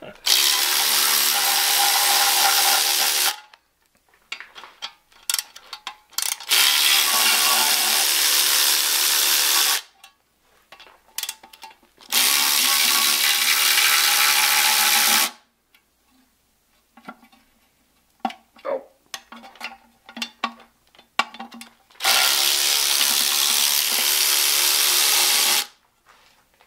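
A cordless power tool with a socket spinning bolts out, run in four steady whirring bursts of about three seconds each. Short clicks and clatter of tools and bolts fill the gaps between the bursts.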